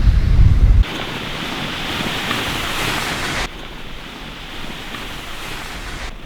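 Blizzard wind. Heavy gusts buffet the microphone as a loud low rumble for the first second, then it cuts to a steady rushing hiss of wind. About three and a half seconds in, it drops to a quieter wind.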